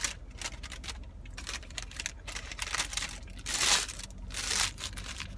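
A paper or plastic food wrapper crinkling in irregular bursts, loudest a little past halfway, over a steady low hum.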